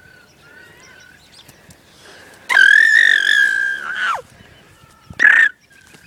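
A person making a high-pitched, drawn-out squealing vocal noise, held steady for nearly two seconds before dropping in pitch, followed by a short sharp squeal about five seconds in; fainter high wavering calls come in the first second.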